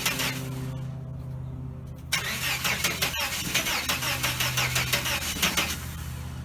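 1989 Chevrolet S10 Blazer engine cranking on the starter without firing: a crank that stops under a second in, then after a pause a longer crank of about three and a half seconds that also ends without the engine catching. It is the no-start the owner is trying to diagnose. A steady low hum runs underneath.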